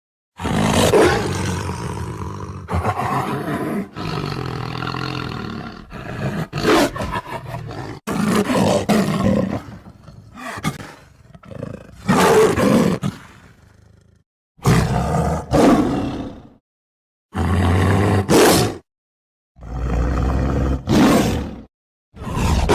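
Tiger roars and growls, a string of separate calls one to a few seconds long, joined by abrupt cuts, with short silent gaps between them in the second half.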